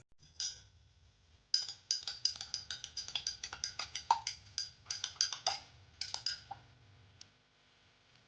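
Spoon clinking against a glass as the warm herbal drink is stirred: a quick run of light ticks, about four or five a second, starting about a second and a half in and stopping near the end.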